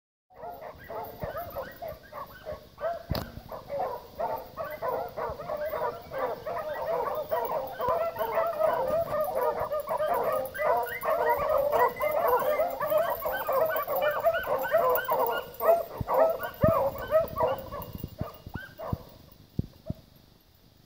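A pack of beagles baying in full cry as they run a rabbit's track, many voices overlapping into a continuous chorus that fades out near the end. The baying means the hounds are on the rabbit's scent.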